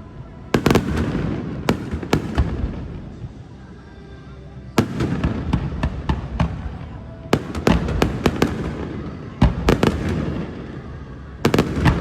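Aerial fireworks exploding: a string of sharp bangs with echoing tails, coming in clusters with a short lull about four seconds in.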